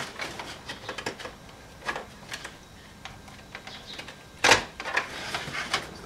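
Plastic instrument-cluster trim panel on a 2005 Chevy Monte Carlo dash being pried and worked loose by hand: scattered clicks and knocks of plastic, with one loud snap about four and a half seconds in.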